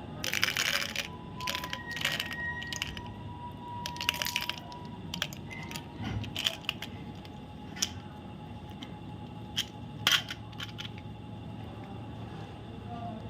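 Chocolate bar wrapper crinkling and rustling as it is handled and opened, in a series of short irregular bursts, the loudest in the first few seconds and again about ten seconds in.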